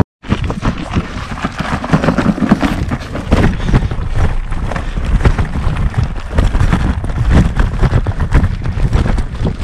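Road bike's 30 mm tyres crunching over loose stones on a rocky dirt track, with the bike rattling and clattering over the rocks and wind buffeting the microphone. The sound starts after a short gap at the very beginning.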